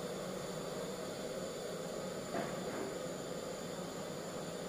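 Steady hiss from a large pot of beef and water heating on a stove, not yet at the boil.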